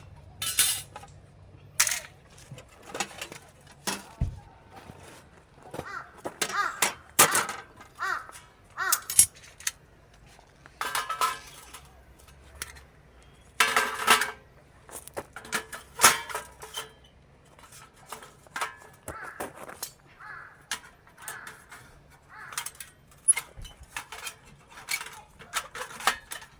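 Irregular clinks and knocks of hard gear being handled and set down, with short metallic rings.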